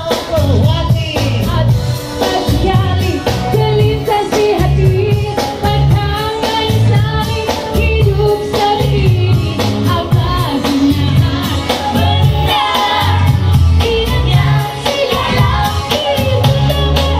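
A woman singing a Malay pop song live into a microphone over a backing track with a steady beat.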